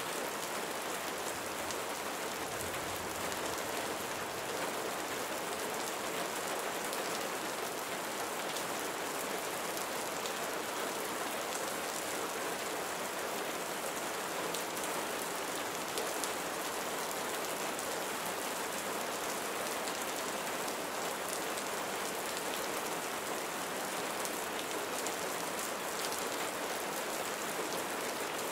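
Steady rain: an even hiss with the fine patter of many individual drops.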